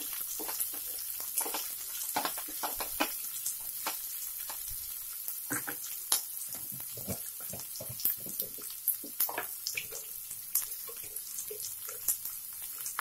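Chopped onion, capsicum and garlic sizzling in hot oil in a nonstick pan, a steady hiss with scattered crackles and pops. A wooden spatula stirs the pan at first.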